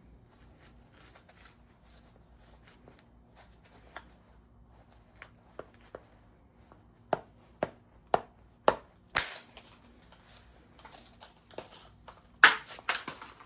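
Flintknapping: a series of sharp, separate taps of a knapping tool striking a stone piece, a few faint ones at first, then about two a second from around seven seconds in, and a louder quick cluster near the end.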